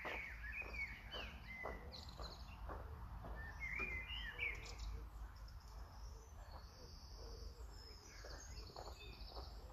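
Faint footsteps crunching on gravel, about two or three steps a second, with birds chirping and a low steady rumble underneath.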